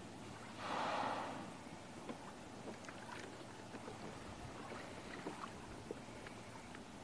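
Water lapping and dripping around a kayak on calm sea, with small drips and splashes throughout. A short whooshing rush of noise about a second in is the loudest moment.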